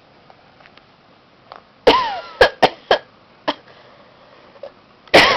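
A woman coughing in fits: a run of four quick coughs about two seconds in, a single lighter one after, and another fit starting near the end.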